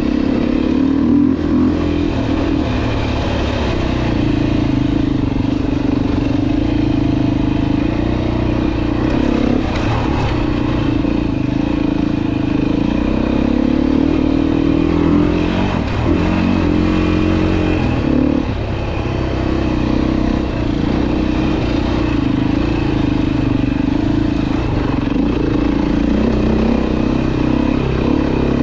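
Dirt bike engine running while riding, holding a fairly steady pitch with a few brief drops and rises as the throttle changes partway through.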